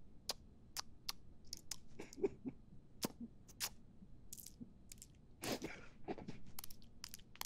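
Mouth-made clicks and clacks imitating the small mechanical parts of a sniper rifle being fitted together: a string of short, sharp clicks at an uneven pace, with a longer rasping hiss about five and a half seconds in.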